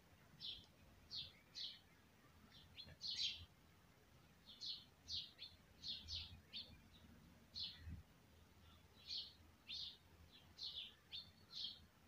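Faint, repeated short high chirps of small birds, spaced irregularly, some sliding downward in pitch.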